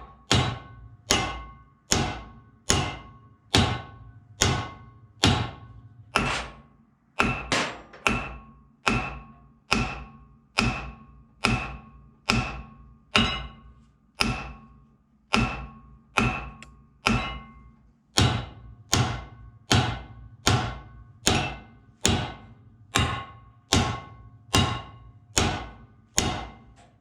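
Heavy hammer striking steel on a Jaguar Mk2 rear axle hub, again and again at about one and a half blows a second, each with a short metallic ring. The blows are trying to shock a stuck rear hub loose from its half shaft.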